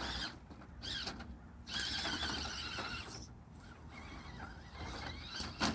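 Electric motor and gear drivetrain of an Axial SCX10 RC crawler whining, the pitch wavering up and down as the throttle changes, with a sharp knock near the end.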